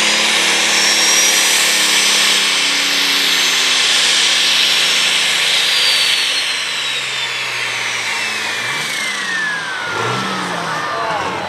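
Turbocharged Super/Pro Stock pulling tractor engine under full load pulling the sled. A high turbo whine climbs over the first few seconds, then the whine and the engine note fall away together as the run winds down, the engine dropping off about ten seconds in.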